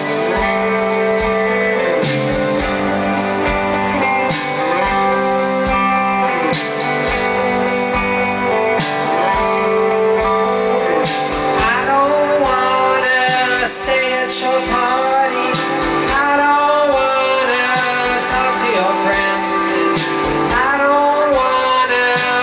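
Live rock band playing through a festival PA: electric guitar, bass guitar, drums and keyboard. About halfway in, a lead line that bends and wavers in pitch comes in over the band.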